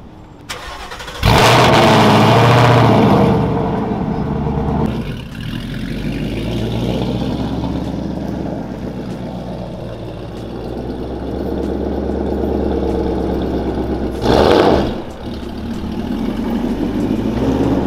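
A Whipple-supercharged 5.0 Coyote V8 in a Ford S550 Mustang GT with catless headers starts up with a loud flare about a second in. It settles to a steady idle, then pulls away at low speed, with a short blip of the throttle near the end.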